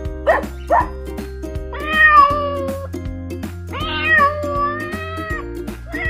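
Two short dog barks in quick succession at the start, then a domestic cat meowing twice in long calls, over steady background music.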